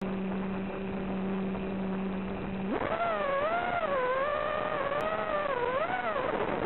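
Racing quadcopter's four Cobra 2206 2100KV brushless motors with 5045 bullnose props, heard through the onboard audio: a steady low hum while armed and idling on the ground, then about three seconds in the pitch jumps to a high whine as the throttle is punched for launch, rising and falling with the throttle. A steady hiss runs under it.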